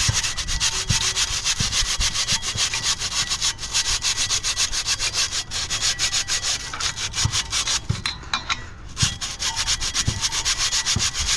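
Sandpaper rubbed by hand in quick back-and-forth strokes across a brake rotor's face, cross-hatching the braking surface to deglaze it. The strokes pause briefly about eight seconds in.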